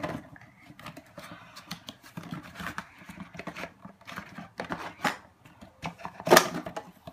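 Cardboard toy box being opened by hand: irregular rustling, crinkling and scraping of the flaps as the plastic gumball machine is slid out, with one louder scrape about six seconds in.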